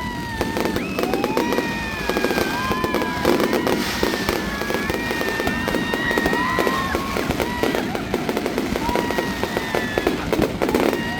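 Fireworks display: repeated bursts and crackling over a crowd's chatter, with long held tones sounding through it.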